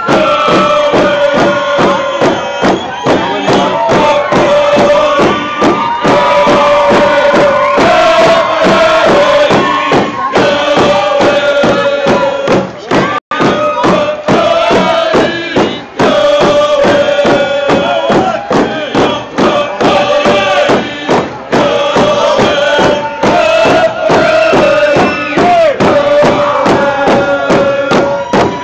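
Ahousaht (Nuu-chah-nulth) group song: many voices chanting together in long held notes over a steady beat of hand drums. The sound drops out for an instant about halfway.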